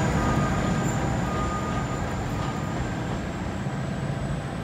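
NJ Transit ALP-45DP dual-power locomotive standing at the platform with its machinery running: a steady low rumble under a thin, high whine, slowly growing quieter.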